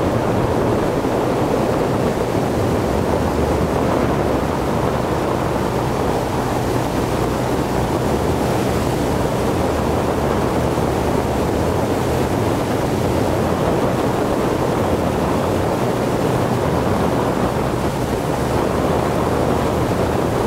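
Ski boat's engine running steadily at towing speed, a low hum under the constant rush of water spray and wind.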